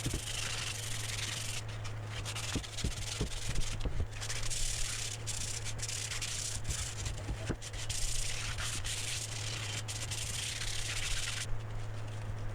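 Sanding the outside of steel exhaust header pipes: a scratchy rubbing that comes in strokes with short breaks, over a steady low hum.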